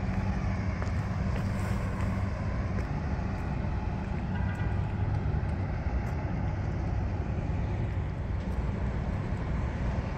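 Steady low rumble of motor-vehicle traffic and engines, with a steady engine hum that stops about two seconds in.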